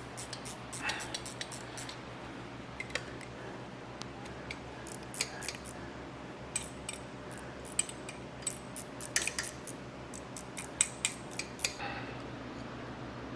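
Scattered light clicks and clinks, some in quick clusters, from tools and engine parts being handled, over a steady low hum.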